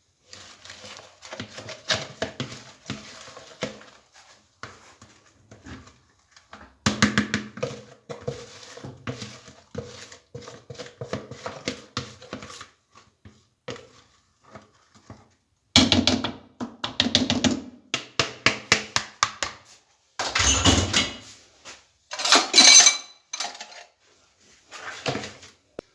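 Kitchen utensils scraping and clicking against a mixing bowl and baking pan as cake batter is transferred into a greased pan, in several runs of quick scrapes and taps. There is a heavy thud about twenty seconds in and a sharp metallic clatter a couple of seconds later.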